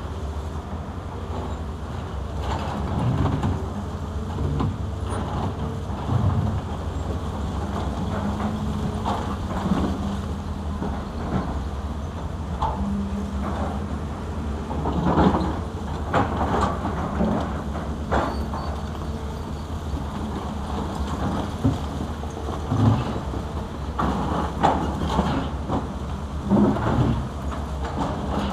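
Zoomlion and Caterpillar excavators' diesel engines running steadily under load as their buckets dig into a rocky bank. Frequent clanks and knocks of rock and broken concrete against the steel buckets, with a few louder ones in the middle and near the end.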